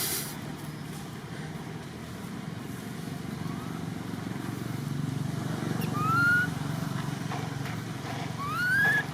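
A monkey gives two short, rising squeals, about six seconds in and again near the end, over a steady low rumble.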